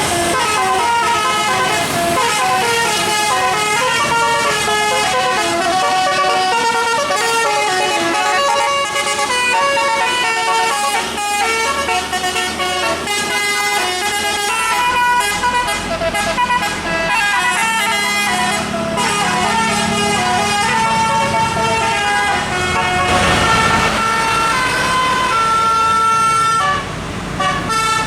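Bus multi-note musical air horn ('telolet') playing a fast tune of short horn notes, over the sound of a bus engine. There is a brief rush of noise about 23 seconds in.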